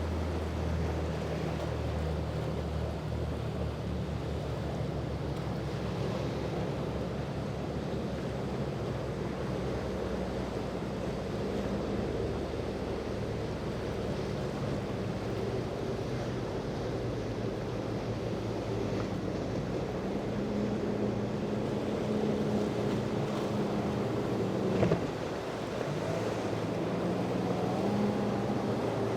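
Motorboat engines running as boats pass through the inlet, over waves and wind noise, with the engine pitch changing as boats come and go. A brief sharp sound about 25 seconds in.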